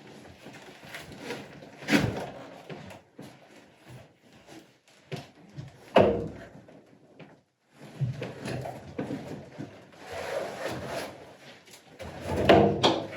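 Thumps and scraping of a heavy window being handled against a wooden frame, with two sharp knocks about two and six seconds in.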